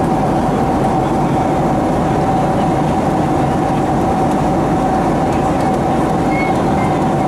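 Steady cabin noise of a Boeing 767 in flight: an even rush of engine and airflow noise with a constant mid-pitched hum running through it.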